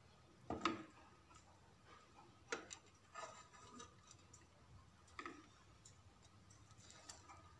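A few light clicks and knocks of kitchenware being handled, about four spread over several seconds, the loudest about half a second in, against a quiet background.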